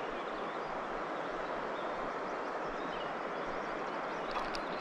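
Steady rushing of river water flowing through a shallow channel, an even hiss that never changes, with a few faint clicks near the end.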